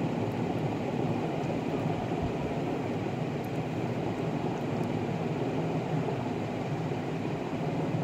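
Steady low rumbling background noise with no distinct events, the kind a running fan or air conditioner makes in a small room.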